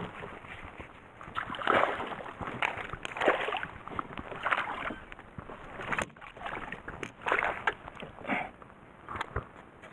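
Water splashing in irregular bursts, about one a second, as a hooked small black bass thrashes at the surface and is reeled to the boat and lifted out, with a few sharp clicks between.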